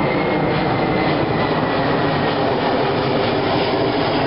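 Aircraft engine running steadily, a continuous rumbling drone with a faint high tone that slowly falls in pitch.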